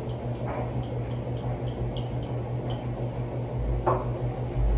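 A cloth wiping across the glass screen of a 27-inch iMac, with faint small squeaks, over a steady low hum. There is a short knock about four seconds in.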